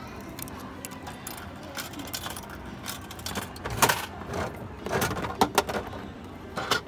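Coins clinking into the slot of a capsule-toy vending machine, then its crank handle turned with a run of ratcheting clicks and clacks as the capsule is released, with a few sharper clacks near the end.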